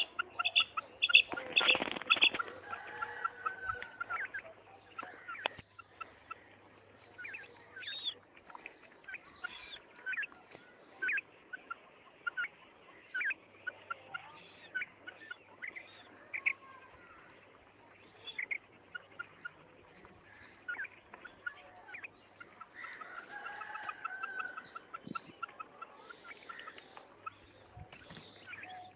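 Caged female quail calling: fast runs of short, high, repeated notes near the start and again late on, with scattered single notes between. A brief louder noise about two seconds in.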